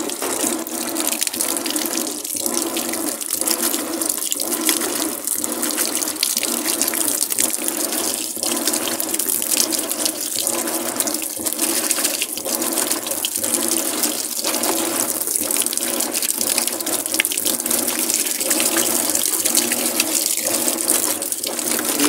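Whirlpool semi-digital top-load washing machine on its Quick Wash cycle, water pouring into the tub while the agitator churns the clothes. The sound swells and dips about once a second.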